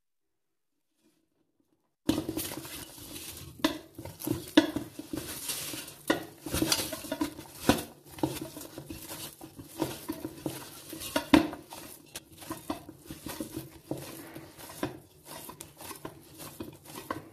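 Hands kneading oiled maida dough in a stainless steel bowl, starting about two seconds in: a busy, irregular run of dough slapping and squishing against the steel, with sharp knocks of the bowl now and then.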